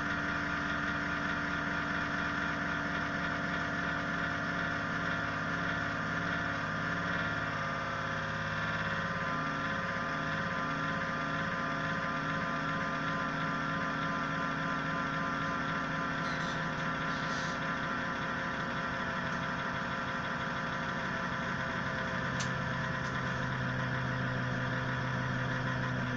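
Ig-Max 1607 500W PC power supply running: a steady mechanical hum with several whining tones layered over it, the pitches shifting slightly a few times.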